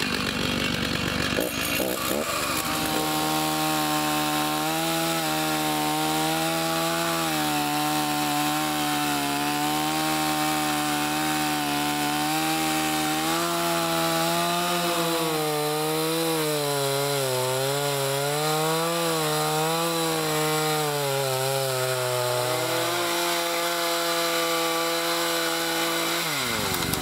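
Stihl chainsaw running at high revs while cutting through a fallen tree trunk; its engine note wavers up and down as the chain bites into the wood. Near the end the pitch drops away sharply as the throttle is released.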